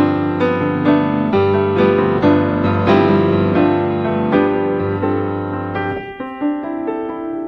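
Background piano music: a slow melody with sustained bass notes, and the bass drops away about six seconds in.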